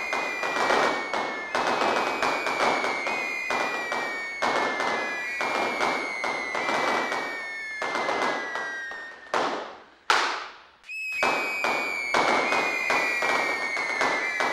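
Fireworks going off: rapid crackling pops and bangs under several overlapping whistles that each fall slowly in pitch over about two seconds. About ten seconds in the crackle thins to two short whooshes and a moment's gap, then the pops and falling whistles start again.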